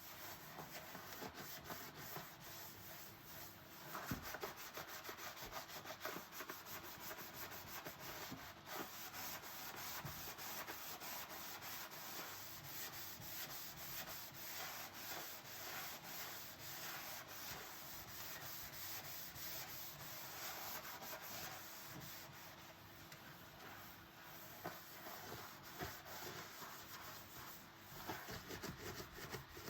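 Dishes being scrubbed by hand: a continuous scratchy rubbing with a few louder knocks of dishware.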